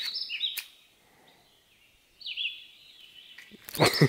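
A songbird calling in short, high, downward-slurred notes, one phrase at the start and another about two seconds in. Near the end there is a brief loud clatter.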